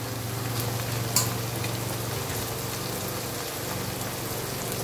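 Cut okra frying in hot oil in a karahi: a steady sizzling hiss, over a steady low hum, with one short click about a second in.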